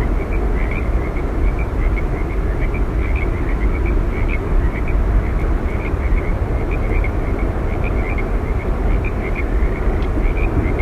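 Steady roar of Yosemite Falls' falling water, deep and unbroken, with many short high chirps scattered through it.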